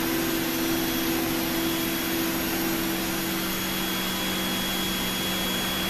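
Cone calorimeter's gas-sampling pump and exhaust fan running: a steady hum with a rush of air. A faint high whine comes in about two seconds in.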